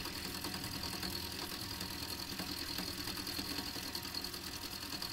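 Milling machine running a four-flute end mill as it squares up the end of a 1018 steel bar: a steady motor hum with a thin high tone above it and the sound of the cut.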